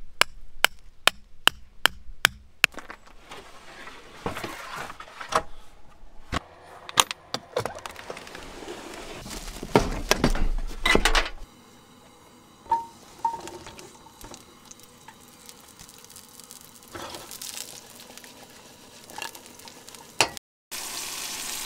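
A rock knocking a metal tent stake into gravel, a quick run of sharp knocks, followed by the clatter of camp cookware and containers being handled. Near the end a pan of Brussels sprouts starts sizzling on a camp stove.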